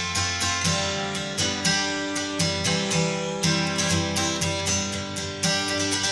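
Background music: strummed acoustic guitar chords in a steady rhythm, about two strums a second.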